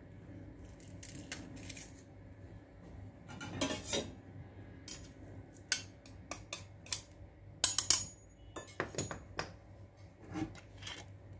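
Stainless-steel garlic press and a knife blade clinking and scraping against each other and against a ceramic bowl as garlic is pressed out and scraped off. Irregular sharp clicks, loudest in a cluster a little past the middle.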